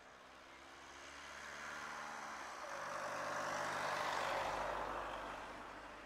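A motor vehicle passing by: a rushing engine-and-road noise that swells to a peak about four seconds in, its pitch dipping slightly, then fades away.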